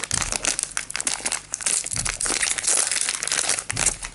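Foil booster-pack wrapper of a trading card game crinkling and crackling as it is torn open and handled. The crackling is dense and continuous, dying away near the end.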